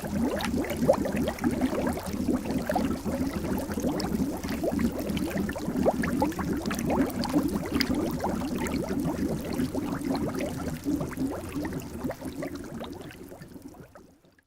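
Water bubbling: a dense, continuous stream of small bubbles, each a short rising blip, fading out over the last couple of seconds.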